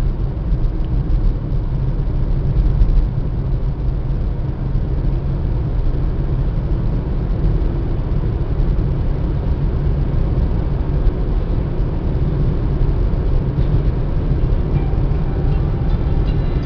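Car driving through a highway tunnel: a steady, low road-and-engine rumble with no change in pace.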